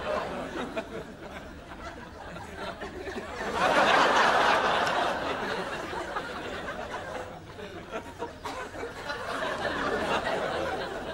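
Studio audience laughter, swelling to a louder burst about four seconds in, then easing off.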